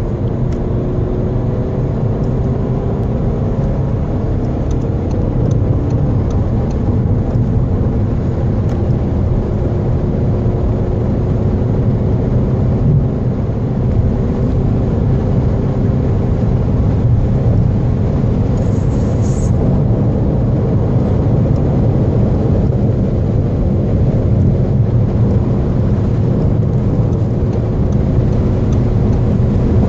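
Volkswagen Golf Mk7 heard from inside the cabin while accelerating at high speed, from about 100 to nearly 200 km/h. Steady engine drone with heavy road and wind noise; the drone climbs slowly in pitch and grows a little louder.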